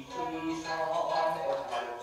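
Jōruri chanting with shamisen accompanying a Japanese puppet play: a voice singing long held, wavering notes over plucked strings.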